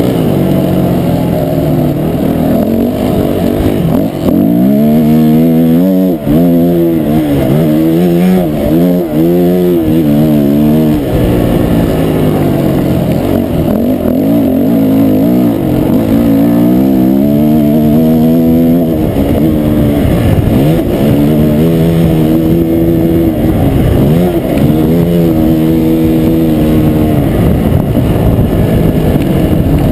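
Dirt bike engine heard from on board while riding, its pitch climbing and dropping over and over as the throttle opens and closes and the gears change.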